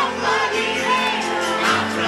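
A man singing a Bulgarian pop-folk song live into a microphone over loud amplified backing music.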